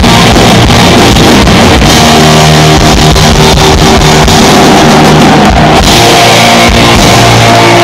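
Rock band playing live, with distorted electric guitars and drums, recorded very loud and pinned at full level. Chords ring out and are held through the middle.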